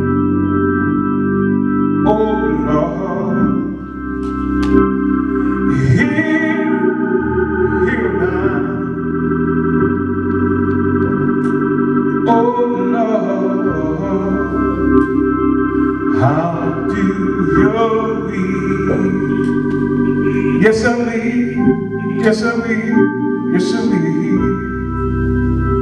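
Organ playing long held chords while a man sings a gospel song in phrases over it, his voice coming in and out between lines.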